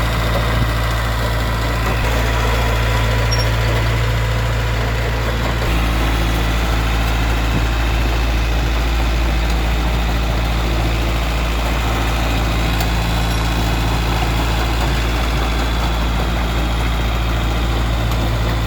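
Caterpillar D3B bulldozer's 3204 four-cylinder direct-injection diesel engine running steadily at idle; its tone shifts slightly about six seconds in.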